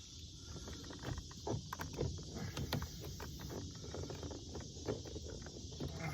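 Irregular light clicks and knocks of plastic door-trim parts being handled and moved about, over a steady hiss.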